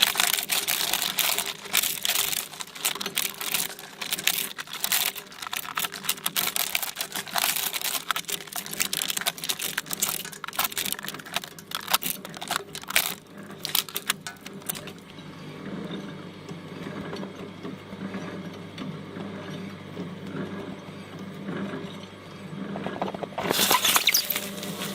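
Electric shredder running with a steady motor hum, crackling and clicking densely as it chews through Play-Doh. About 15 s in the crackling dies away and the motor runs on more quietly. It starts crackling again near the end.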